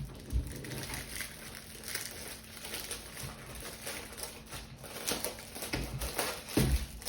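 Packaging wrap rustling and crinkling as a keyboard is unwrapped and handled, with a few low thumps, the loudest near the end.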